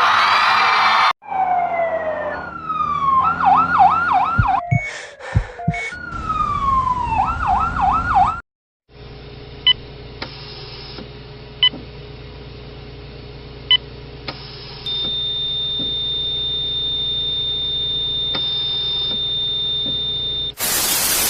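A siren wail: falling sweeps, then a fast up-and-down yelp, heard twice over about seven seconds. After it comes a faint steady low hum with a few scattered clicks and a thin high steady tone.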